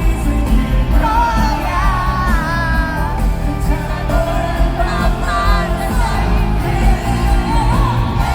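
Male pop singer singing live over a full band, held and gliding sung notes above steady bass and drums, amplified through the venue's sound system.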